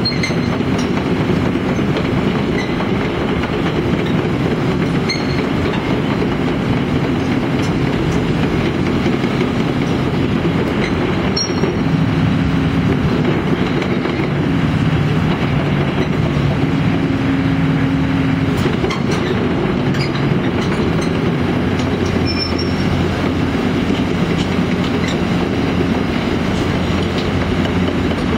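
Caterpillar 320D tracked excavator running and manoeuvring: a steady diesel engine and hydraulic drone whose note shifts with load, with scattered metallic clicks and clanks from the steel tracks and undercarriage.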